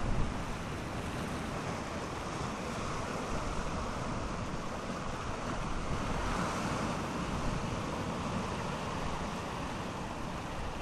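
Sea surging and washing over rocks at the shoreline: a steady rush of surf that swells a little about halfway through. Wind buffets the microphone briefly at the start.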